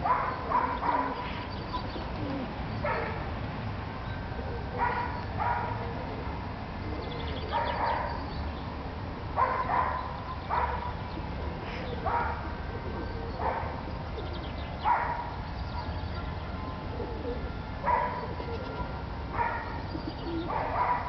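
An animal giving a series of short calls, about fifteen of them, irregularly spaced roughly one every second or two.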